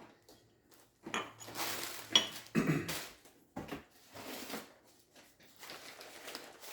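Old glass dishes being handled and set down, knocking and clinking against each other, with one sharp clink about two seconds in; paper wrapping rustles near the end.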